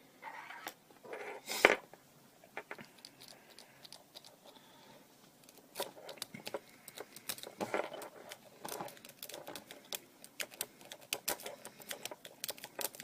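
A lock-pick rake scraping and clicking over the pin tumblers of a small 30 mm padlock while a tension wrench holds the plug. There is one louder knock near the start, then rapid, irregular light ticks through the second half.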